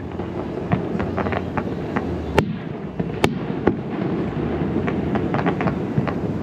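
Aerial fireworks bursting in rapid succession: a steady rumble of booms laced with many sharp crackles, with two louder bangs near the middle.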